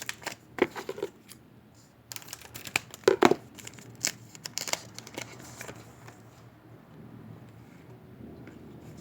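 Crinkling and tearing of a trading-card pack wrapper with cards being handled: irregular rustles and clicks, the loudest about three seconds in, then quieter near the end.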